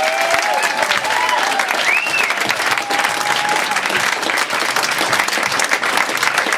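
Audience clapping and cheering, with a few drawn-out high calls rising above the applause in the first few seconds.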